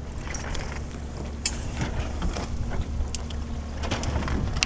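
Steady wind rumble on the microphone of a small sailboat under sail, with scattered light clicks and rustles.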